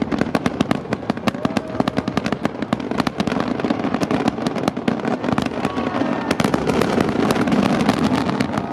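Fireworks finale: a starmine barrage of aerial shells going off in rapid succession, many sharp bangs a second over a continuous rumble, growing a little louder toward the end.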